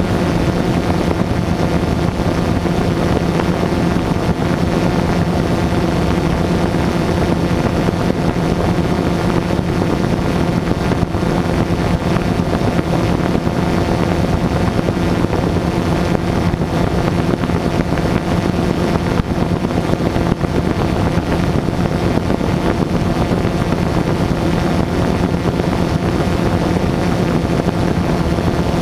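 Drone's motors and propellers running steadily at a hover, close to the microphone: a loud, even whine at an unchanging pitch over a rush of air.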